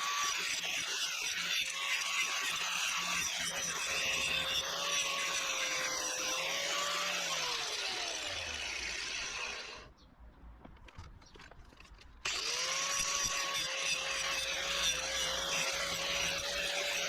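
Angle grinder with a thin disc working a steel stabilizer-link stud, a steady high whine over harsh grinding hiss. The motor winds down and goes nearly quiet for about two seconds, then spins back up to full speed and keeps working.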